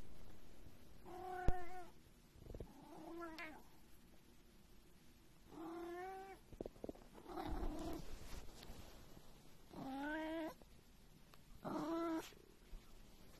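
Long-haired black cat meowing over and over, six drawn-out meows about two seconds apart. A sharp click comes about a second and a half in.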